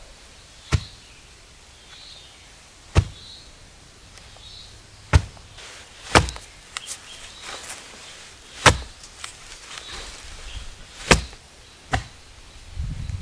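A pointed wooden fence post rammed by hand into a hole in the soil, each drop landing as a sharp thud; about seven thuds come at uneven intervals of one to two and a half seconds.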